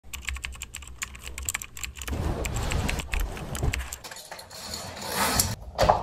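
Handling and rustling noises: a run of quick light clicks, then fabric rustling as bedding is moved. Near the end comes a rising swish as a curtain is drawn open.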